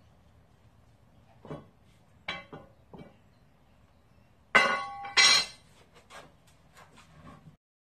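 Steel tools clanking on a tiled floor: a few light knocks, then two loud ringing clanks of metal near the middle, followed by lighter clinks.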